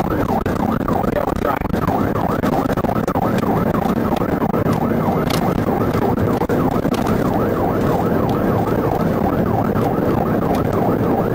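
Police car siren in a fast yelp, its pitch sweeping up and down rapidly and without a break, over the rumble of the car's engine and tyres.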